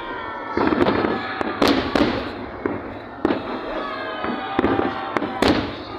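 Aerial fireworks bursting overhead: a run of sharp bangs at irregular intervals, about one or two a second, each with a short echoing tail.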